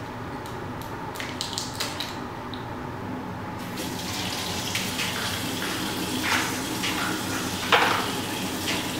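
Bathroom sink faucet running into the basin, the water getting louder about four seconds in, with a few small clicks of things being handled on the counter and a sharper splash or knock near the end.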